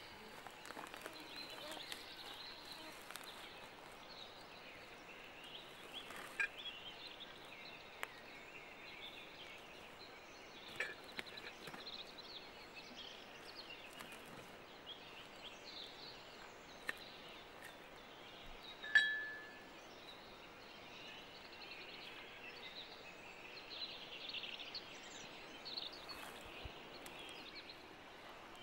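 Faint forest ambience with scattered bird chirps and a few light clicks and knocks. About two-thirds of the way through comes one sharp clink that rings briefly before dying away.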